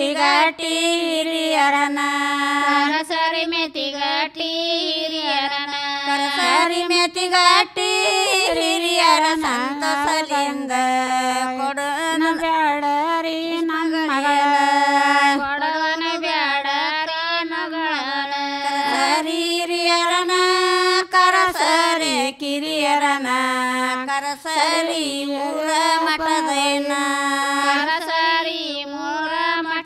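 A group of women singing a Kannada shobhana pada, a traditional folk song, together into microphones with no instruments, the melody moving in long, bending sung phrases.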